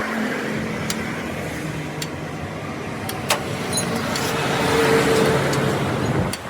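A motor vehicle's engine running over road noise, growing louder to a peak about five seconds in, then cutting off abruptly near the end.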